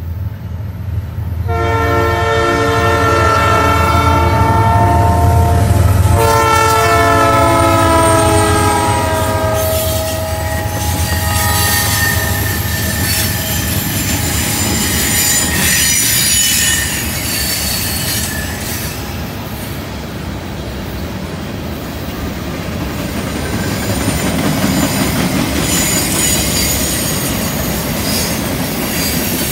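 CN freight train's lead diesel locomotives arriving with the horn sounding two long blasts, the second dropping in pitch as they pass, over a heavy engine rumble. Then freight cars roll by on the curve with high wheel squeal and clickety-clack of the wheels on the rails.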